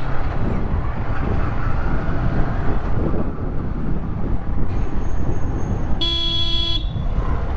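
Steady rumble of a motorcycle being ridden along a road, with one short horn blast of under a second about six seconds in.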